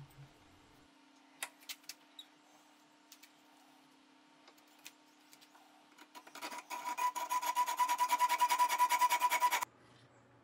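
Hacksaw cutting a notch in 1/2 inch steel bar stock clamped in a bench vise: a few faint clicks, then a run of rapid back-and-forth rasping strokes with a ringing metallic tone that starts about six seconds in and stops abruptly near the end.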